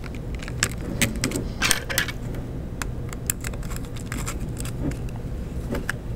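Scattered small clicks, taps and rattles of 3D-printed plastic parts and a small metal bolt, washer and nut being handled and fitted together as a cooling fan is mounted onto a printer's carriage, over a steady low hum.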